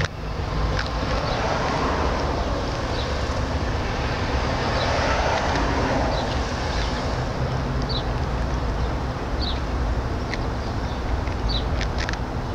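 Steady outdoor background rumble and hiss, with a few short high chirps scattered through it.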